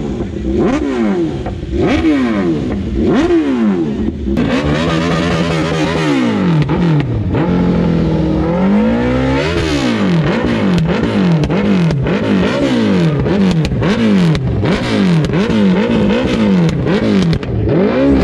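Superbike engine revved over and over while standing still, each blip rising and falling in pitch. About one rev a second at first, a longer held rev near the middle, then quicker blips of about two a second.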